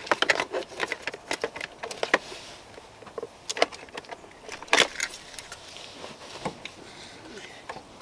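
Scattered clicks and metallic rattles of a Graco 4Ever Extend2Fit car seat's lower-anchor (LATCH) connector and strap hardware being worked onto the car's metal anchor bar behind the seat cushion, with one louder clack about five seconds in.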